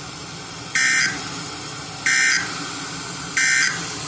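Emergency Alert System end-of-message code: three short bursts of digital data tones, about 1.3 seconds apart, heard over an FM radio broadcast with a steady background hiss. The bursts mark the end of the severe thunderstorm warning.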